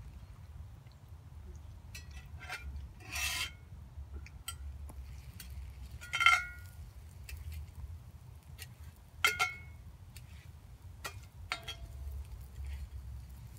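Metal spatula scraping and clinking against a skillet as a slice of toast is turned, in four separate strokes a few seconds apart. The loudest, about six seconds in, rings briefly.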